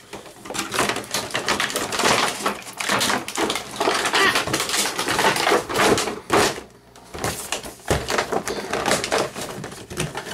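Cardboard box and clear plastic blister tray of an action figure set being handled, crackling, rustling and scraping with small knocks, with a brief lull about six and a half seconds in.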